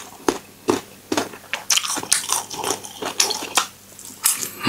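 A person biting and chewing a mouthful of spicy instant-noodle salad, giving a run of short, irregular crunches.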